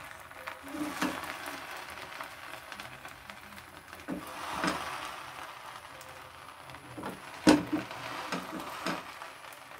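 Bread slices frying on a hot tawa with a faint sizzle, broken by a few soft knocks and taps as the top slices are set down and pressed flat; the sharpest knock comes about seven and a half seconds in.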